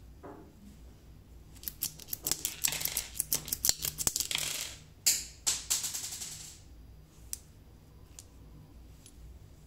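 Rapid small metal clicks and rattles from a miniature alloy toy pistol as its slide is worked and a dummy cartridge is ejected, with a hiss-like rubbing under them. One sharper click comes about five seconds in, followed by a few faint clicks.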